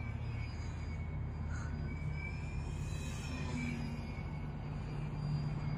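RC model Cub airplane's motor and propeller whining in flight. The pitch drifts a little and the whine swells briefly about three seconds in, over a steady low hum.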